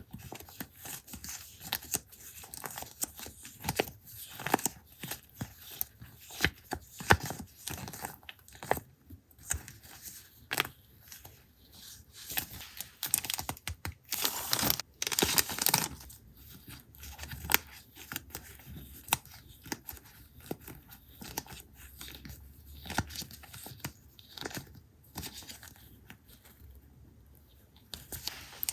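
Paper being handled close up: short tearing and crinkling strokes with small taps and clicks between them, and a longer rustling tear about halfway through.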